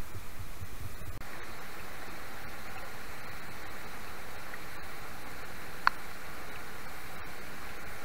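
Steady rush of flowing river water, with low rumbling in the first second and a single short, sharp click about six seconds in.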